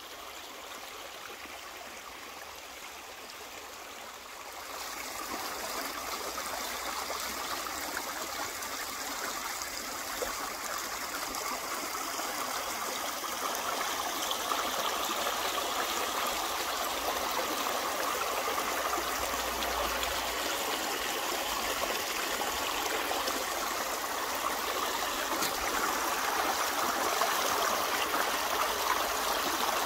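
A shallow stream flowing and rippling over stones, a steady rush of water that gets louder about five seconds in.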